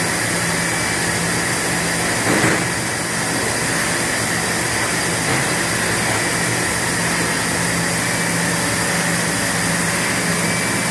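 Steady hum and hiss of running injection-molding plant machinery, with one short knock about two seconds in.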